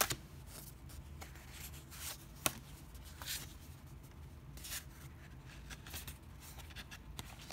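Stiff printed art cards being flipped through and handled by hand: soft sliding and rustling with scattered light ticks, the sharpest about two and a half seconds in.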